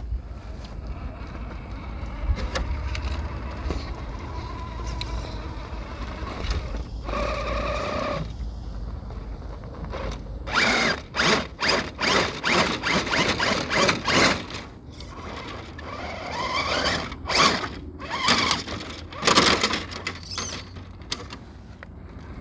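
Axial Unimog 6x6 RC crawler's brushless motor and gear drivetrain whirring in short bursts as it crawls over rocks, with clicking and clattering from the gears and tyres on rock. The bursts come in two clusters in the second half, some rising in pitch as the motor speeds up.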